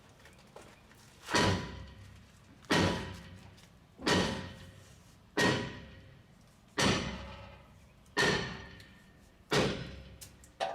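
Hammer striking metal, seven evenly spaced blows about 1.4 seconds apart, each ringing briefly after the hit.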